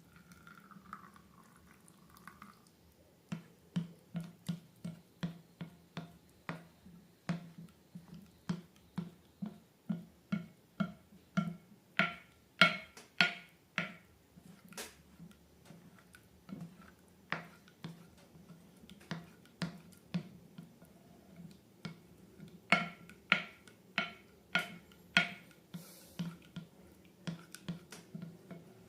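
Slime being squeezed and poked by hand, giving a long run of sharp wet clicks and pops, about two or three a second, that come thickest and loudest in two clusters, around the middle and again near the end.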